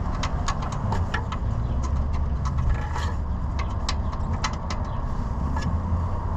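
Irregular sharp clicks and taps of a socket and wrench on metal as a crusty old oxygen sensor is worked out of the exhaust, over a steady low rumble.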